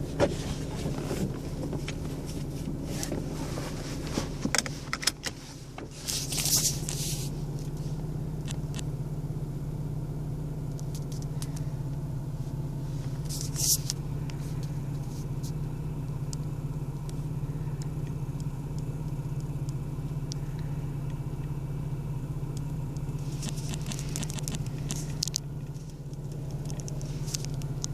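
A steady low engine-like hum, as of a vehicle idling, with scattered short clicks and a few brief rustling bursts.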